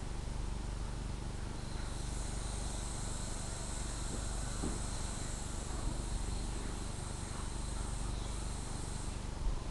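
A high, thin, steady insect buzz that starts about two seconds in and stops shortly before the end, over a steady low hum.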